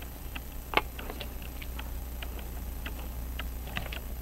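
Hamilton 916 pocket watch ticking: a quick run of small sharp ticks, with one louder click about three-quarters of a second in.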